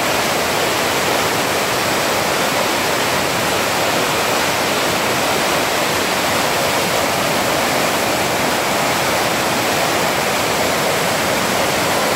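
Steady loud rush of a river in flood, muddy water churning through rapids over rocks, swollen by heavy monsoon rain.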